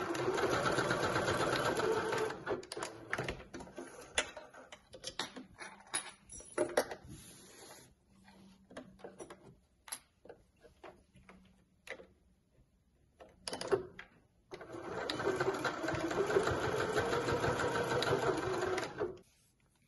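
Electric domestic sewing machine stitching through cotton fabric and webbing tape: a steady run for about two seconds, then scattered clicks and quieter gaps while it stops, then a second steady run of about four and a half seconds near the end that stops shortly before speech resumes.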